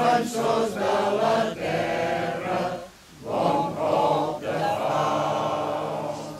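A group of men and women singing a song together, holding long notes, with a short pause for breath about three seconds in; the last note tails off near the end.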